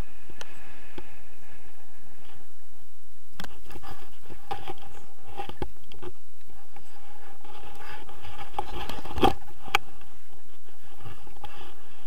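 Tandem paraglider touching down on grass: the harness and bodies bump and scrape across the ground, with a run of knocks and rustling, the loudest knock about nine seconds in.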